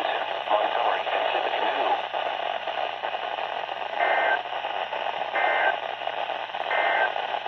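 Three short warbling data bursts about 1.4 s apart over steady radio hiss: the Emergency Alert System end-of-message (SAME 'NNNN') tones that close the severe thunderstorm warning.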